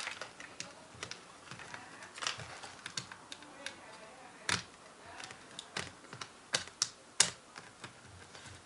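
Irregular small clicks and taps of fingers handling the internal parts of an open MacBook laptop, with a few sharper clicks in the second half.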